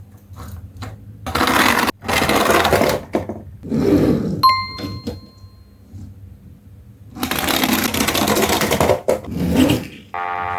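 Several bursts of rattling, rolling noise, typical of plastic toy cars running down a toy slide. About halfway through comes a single bell-like ding that rings out for about a second.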